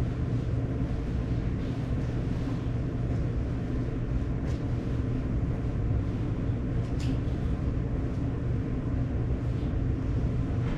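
Steady low mechanical hum with a faint even hiss: the room's background noise, with a faint click about seven seconds in.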